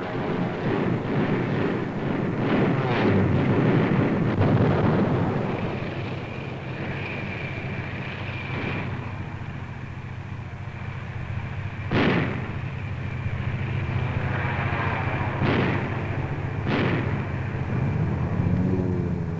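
Battle sound on an old film soundtrack: a dense rushing roar, then gun reports cracking out, once about two-thirds of the way through and twice more near the end. A thin steady high whine comes and goes in between.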